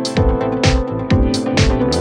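Electronic background music with a steady beat of about two thuds a second.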